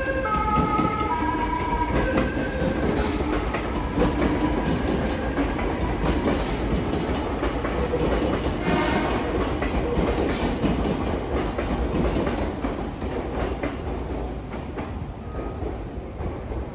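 Meitetsu 1200 series train's musical horn sounding the last few notes of a cut-short, off-sounding melody, then the train's running noise with wheels clicking over rail joints, slowly fading toward the end.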